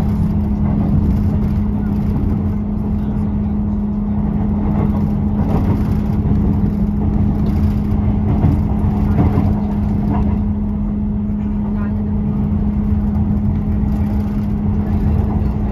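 Class 158 diesel multiple unit under way, heard from inside the carriage: a steady engine drone with one constant hum over the running noise of the train.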